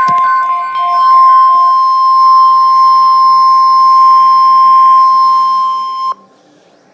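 NOAA Weather Radio warning alarm tone: one steady, high single-pitch tone signalling an incoming weather alert, here a tornado watch. For about the first second and a half a two-note electronic beeping alarm sounds over it. The tone cuts off suddenly about six seconds in.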